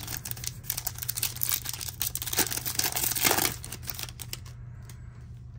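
Plastic wrapper of a 2023 Topps Chrome baseball card pack being torn open and crinkled by hand, a dense crackling that is loudest about three seconds in and dies away around four seconds.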